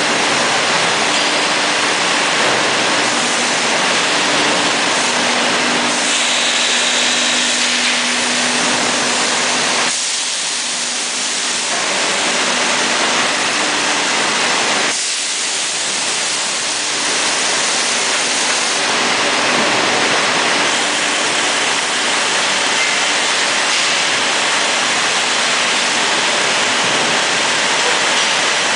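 Steady mechanical noise of an automated cheese-mould stacking line running: a dense hiss with a faint low hum, easing off slightly twice, about ten and fifteen seconds in.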